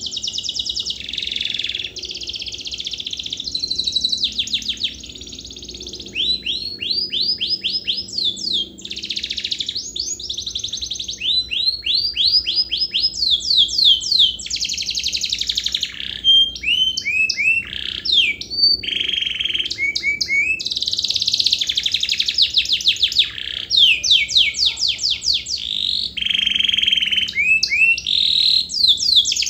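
Domestic canary singing a long, unbroken song of fast trills, rapid runs of repeated notes and sweeping whistles, changing phrase every second or two.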